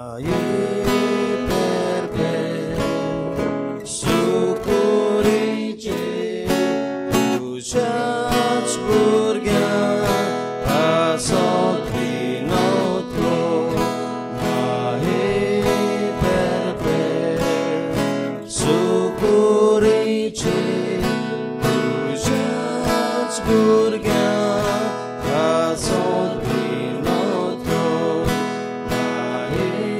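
Music of strummed acoustic guitar in a steady rhythm, starting suddenly right after a quiet moment.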